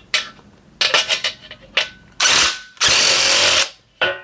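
Cordless DeWalt impact driver spinning a DWASHRIR metal-shear attachment as it cuts a thin (about 0.5 mm) steel drywall profile. A few short clicks come first, then the tool runs in two bursts, about half a second and then about a second long, with a brief blip near the end.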